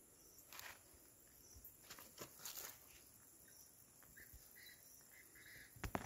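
Quiet rural ambience: a steady high insect buzz, with faint rustling, a few short faint chirps a little after the middle, and a sharp knock near the end.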